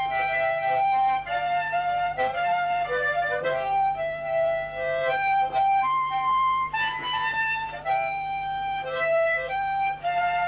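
A harmonica played by mouth: a melody of short notes, several reeds sounding together, changing pitch every fraction of a second.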